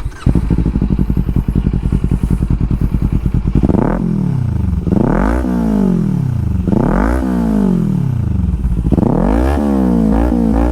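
Kawasaki Ninja 400 parallel-twin engine, breathing through a Yoshimura slip-on exhaust with the dB killer removed, starts up and idles for a few seconds. After about four seconds it is revved in a series of throttle blips, each rising and falling in pitch, several of them close together near the end.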